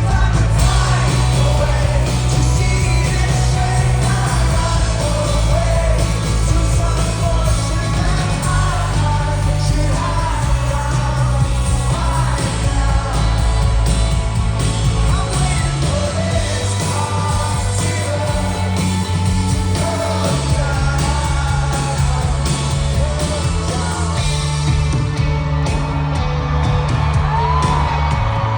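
Rock band playing live, with a sung lead vocal over a stepping bass line and drums, and yells from the crowd.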